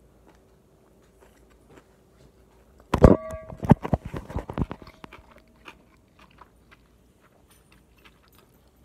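Faint chewing, then about three seconds in a burst of loud knocks and rubbing lasting under two seconds as the recording phone is picked up and handled, followed by faint scattered clicks.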